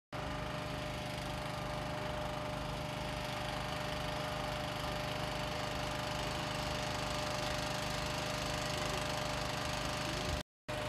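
An engine idling steadily at an even pitch. The sound cuts out for a moment near the end.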